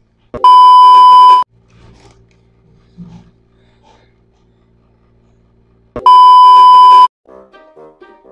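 Two long, steady electronic beeps, each about a second long and about five seconds apart, so loud they clip and sound harsh. Faint music begins near the end.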